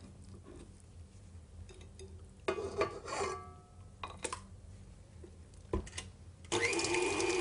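A spatula scrapes thick chilled pastry cream into a stand mixer's steel bowl, with a few clinks against the metal and a sharp click. About six and a half seconds in, the stand mixer's motor starts whisking the cream, steady with a high whine.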